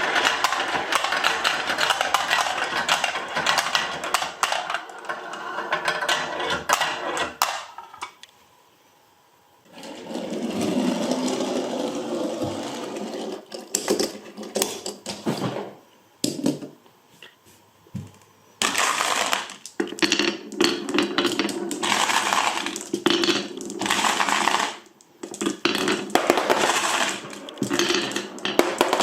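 Glass marbles rolling and clattering down a marble run's slopes, with a steady rolling rumble and many sharp clicks as they hit track pieces and each other. The run goes quiet for about two seconds a third of the way in, then starts up again in shorter, choppier runs.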